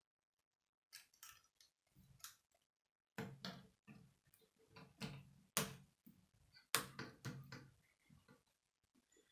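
Plastic K'nex rods and connectors clicking and rattling as a built model is handled, with knocks as it is laid flat on a wooden table. The clicks start about a second in, grow louder from about three seconds in, and include a few sharp, loud ones.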